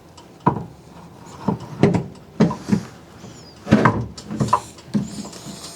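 A series of irregular knocks and clunks from the photo booth's head being handled and set onto its pillar, with the loudest cluster about four seconds in.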